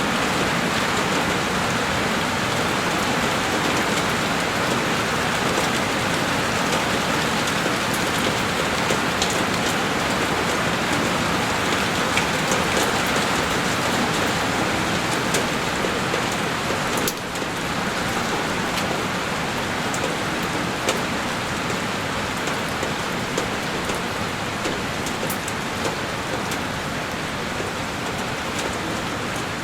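Heavy rain falling steadily on a window pane: a dense, even hiss with scattered sharper drop ticks. The level dips for a moment about halfway through.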